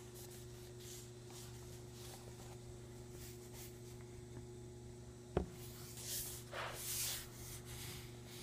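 Blue coloured pencil scratching across drawing paper in several short shading strokes near the end, after a single sharp tap about five seconds in. A steady electrical hum runs underneath.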